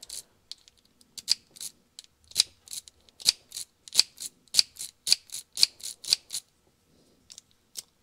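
Key being turned back and forth in a hand-held Mercedes W126 ignition lock cylinder, its detents clicking in a quick run of sharp clicks, about three a second, that stops a little after six seconds, with a few faint ones after. The crisp detent clicks mark a cylinder that turns smoothly.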